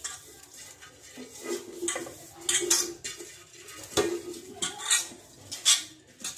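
An aluminium pot being handled and rubbed inside by hand while oil is spread around it: a run of metallic clinks and scrapes as the hand and wrist bangles knock against the pot, with a sharper knock about four seconds in.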